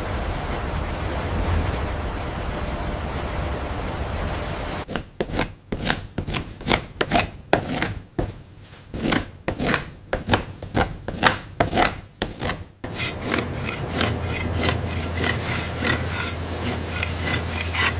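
A blade scraping over a limed ostrich hide to clear away impurities: a steady rasping hiss, then a run of short scraping strokes about three a second from about five seconds in, then continuous rasping over a low steady hum.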